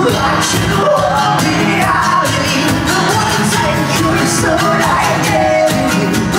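Live acoustic band: a man singing into a microphone over strummed acoustic guitars, with a cajon keeping a steady beat.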